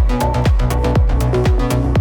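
Electronic background music with a steady kick drum about two beats a second under sustained synth notes.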